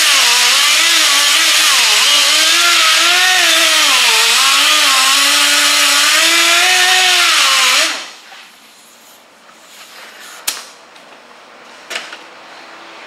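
8-inch dual-action sander with 36-grit paper cutting down a thick coat of Bondo body filler, its whine sagging and recovering in pitch as it is pressed into the filler. It cuts off suddenly about eight seconds in, leaving a few light knocks.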